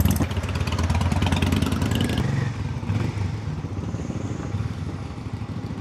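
Royal Enfield motorcycle engine running as the bike pulls away at low speed, with a fast, even beat. There is a rattling clatter over it until about two seconds in, and then it settles a little quieter.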